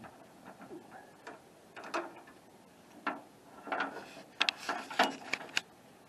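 Scattered sharp metallic clicks and knocks of hand tools working the fastening of a truck's tailgate support cable, thickening into a quick run of clicks late on.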